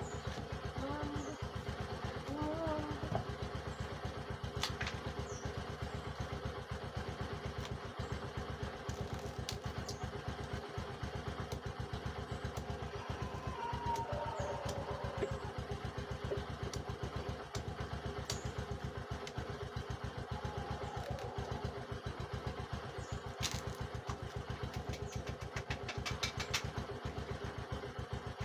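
Steady low drone of a running engine, pulsing fast and evenly throughout, with a few sharp clicks over it.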